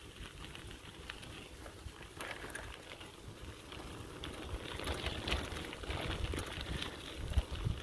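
Bicycle tyres rolling over a gravel path: a steady crunch and crackle of small stones under the wheels, growing louder about halfway through.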